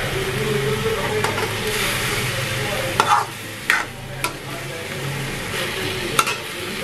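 Chicken pieces sizzling in an aluminium wok while a metal spatula stirs them. The spatula knocks and scrapes against the pan four times in the second half.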